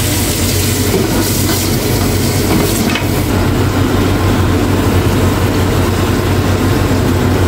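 Kitchen range hood extractor fan running steadily, an even rushing noise over a low hum, with a few light clicks about one and three seconds in.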